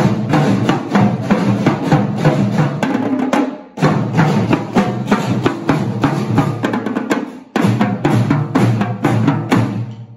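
School drumline playing a samba groove on snare drums and tenor drums, a dense stream of rapid strokes. It stops for a brief gap about four seconds in and again at about seven and a half seconds.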